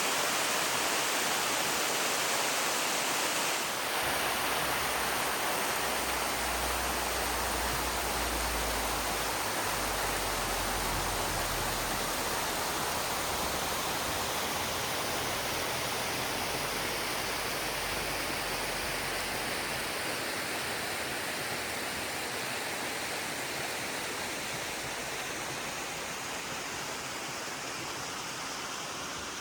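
Steady noise of rushing water, slowly growing fainter, with a low rumble under it for a stretch in the first two-thirds.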